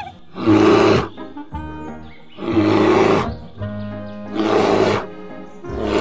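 Cartoon bear roar sound effect: three long roars about two seconds apart, with a fourth starting near the end, over light background music.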